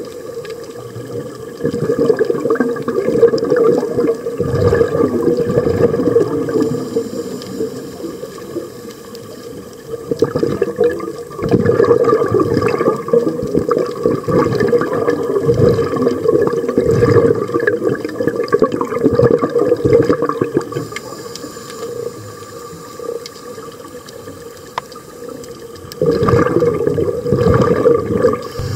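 Underwater sound picked up through a camera housing: bubbling and rushing from scuba divers' exhaled air. It comes in several long loud spells with quieter stretches between them.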